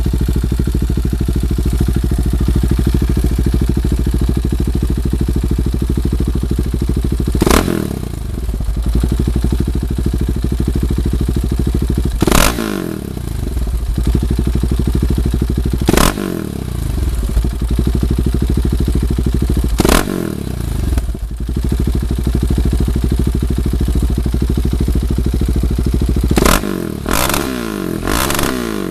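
KTM 690 Duke's single-cylinder engine idling through an aftermarket exhaust, its throttle blipped four times a few seconds apart, each rev dropping quickly back to idle, then several quick blips in a row near the end.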